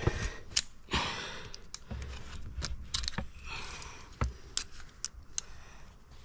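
Scattered sharp clicks and clinks of metal climbing gear, with rustling and scraping between them.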